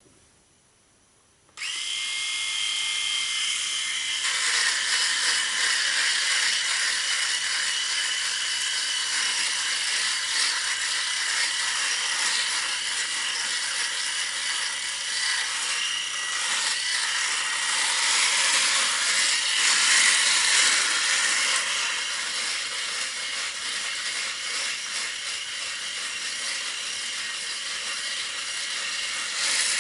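Electric shaver switched on about a second and a half in, running with a steady high whine. A couple of seconds later the buzz turns rougher and more uneven as the head is drawn over stubble and cuts it.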